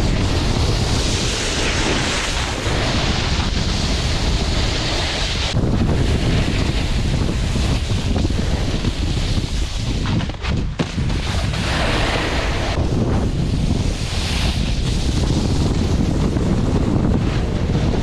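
Wind buffeting the microphone of a camera carried by a snowboarder riding downhill, over the hiss of the board sliding and carving on snow, which swells and fades every few seconds and drops away briefly about ten seconds in.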